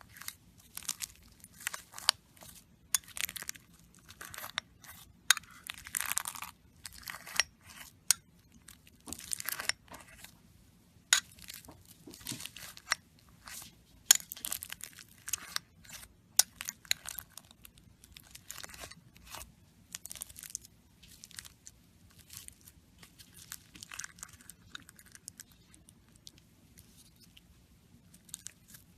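Slime being squeezed, stretched and pressed by hand: irregular sticky crackles and pops, several a second, growing sparser and fainter in the last third.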